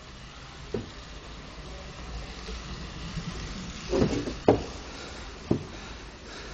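Track bicycle rolling fast on wooden velodrome boards: a low rumble that swells as it passes close, peaking about four seconds in. A few sharp knocks come before and after it, the loudest just after the pass.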